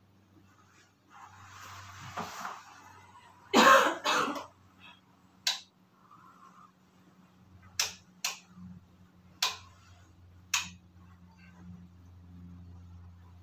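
A person coughs twice in quick succession, after a soft rustle; then a few short, sharp clicks or taps follow at irregular intervals.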